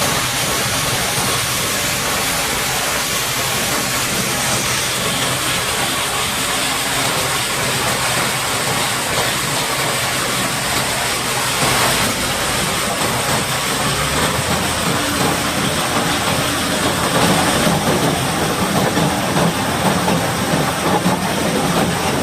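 High-pressure water jet blasting mud off a Caterpillar D8T bulldozer, a loud steady hiss, over a running engine whose note drops and grows stronger about two-thirds of the way through.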